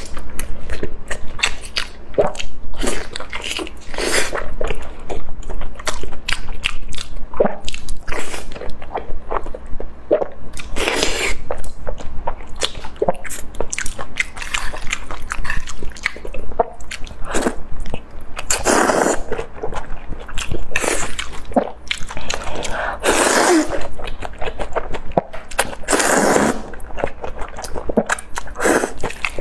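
Close-miked eating of braised beef tendon: biting and chewing, with sticky, wet mouth clicks and smacks in quick succession. Several longer, louder wet bursts come partway through.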